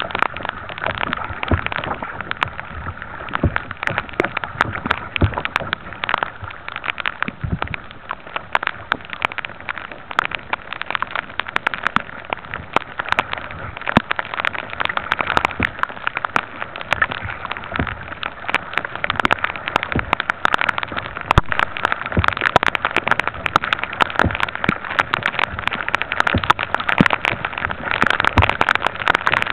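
Steady rain falling close by, heard as a dense, irregular run of sharp drop ticks over a constant hiss.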